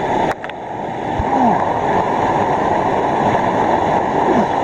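Loud, steady rush of cascading water, with a sharp knock about a third of a second in.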